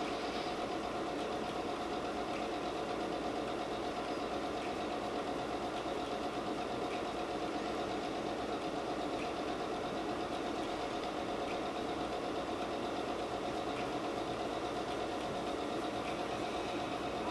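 Steady mechanical hum with a faint held tone, unchanging.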